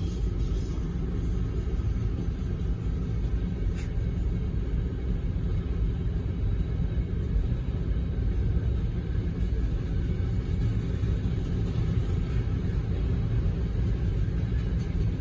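Freight train of hopper wagons behind a VL10U electric locomotive rolling past, a steady low rumble heard from inside a car.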